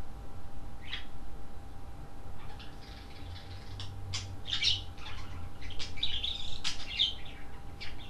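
Budgerigars chirping: one short chirp about a second in, then a run of quick chirps and chatter from about two and a half seconds on, with a few sharp clicks among them.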